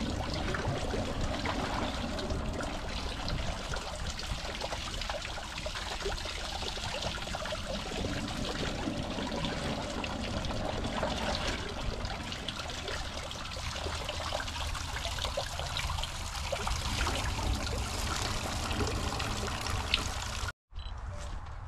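Water pouring steadily from a tubewell's outlet pipe into a brick tank, splashing over the cloth held in the stream.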